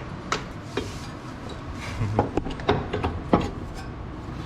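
A few separate knocks and clinks of metal tools and parts being handled, the loudest bunched about two to three and a half seconds in, over a low steady workshop hum.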